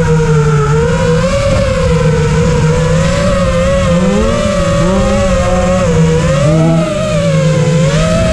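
FPV racing quadcopter's brushless motors and 5-inch propellers whining loudly, the pitch wavering up and down as the throttle changes.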